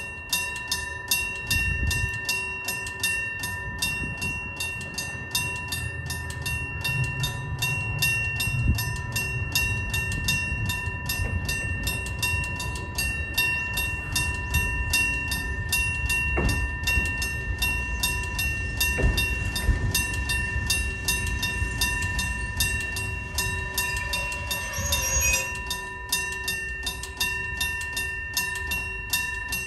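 A 1966 Sankōsha electric-bell level-crossing alarm starts up and rings continuously: a hammer beats rapidly and evenly on the bell, which holds a steady ring. An electric train rumbles past under it.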